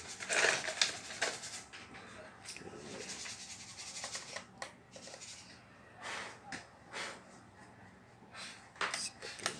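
Scattered light clicks, taps and rustles of hands and tools handling the opened iMac's internal parts, with a brief hiss-like burst in the first second.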